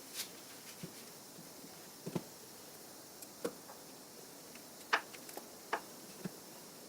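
Scattered light clicks and taps, about eight in all, of hands working a stiff rubber air intake hose into place on the engine's intake; the sharpest comes about five seconds in.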